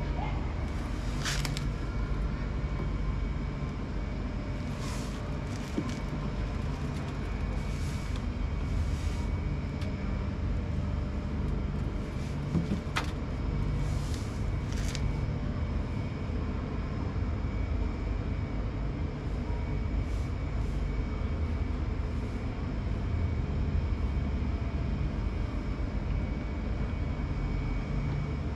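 Top-loading pulsator washing machine running with a steady low rumble, with a few brief hissing sounds over it.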